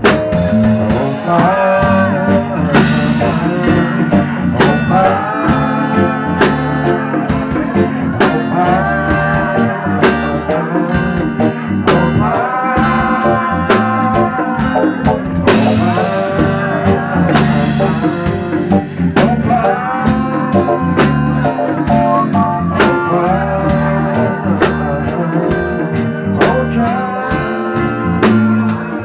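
Live band playing: electric and acoustic guitars over a drum kit keeping a steady beat, with a melody of held notes that slide in pitch.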